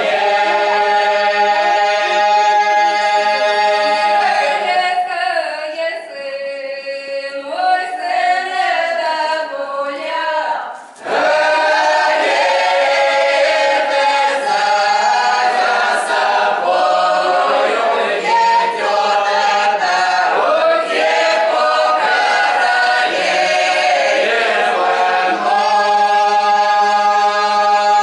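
Mixed group of men's and women's voices singing a Russian folk round-dance song unaccompanied, in long held chords. The singing thins and quietens from about five seconds in, breaks off briefly just before eleven seconds, then the full group comes back in.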